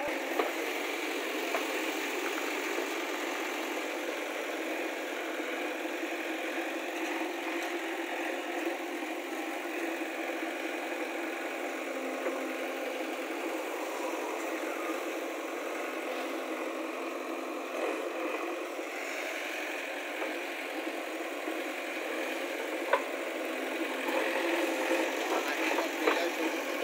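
JCB 3DX backhoe loader's diesel engine running steadily while the backhoe arm digs soil, with a few sharp knocks, more of them near the end.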